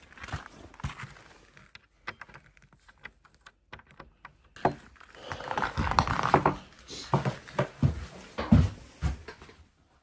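Knocks, clicks and rustling as gear is handled in a small enclosed space. It is sparse for the first few seconds and then busier, with several sharper knocks.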